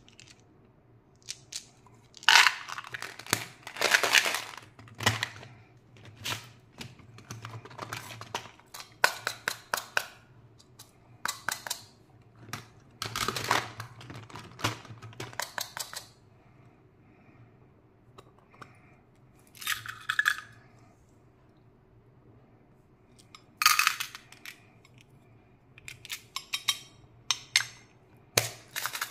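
Plastic candy tubs and toys handled in a heap: clusters of clicks, rattles and plastic clatter, with short quiet gaps between.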